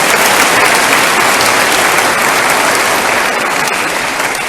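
Congregation applauding, a dense sustained round of clapping that eases slightly near the end.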